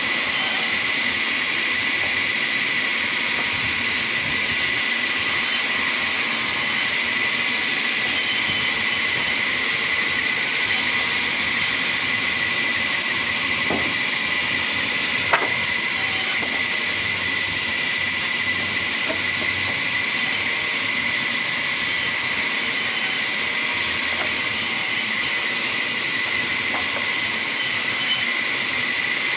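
Sawmill machinery running steadily with a high whine, and one sharp click about halfway through.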